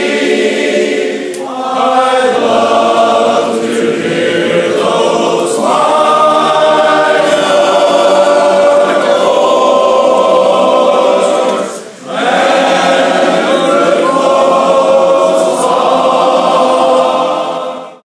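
Barbershop chorus of men's voices singing a cappella in close harmony. The singing breaks briefly about two-thirds of the way through and stops abruptly at the very end.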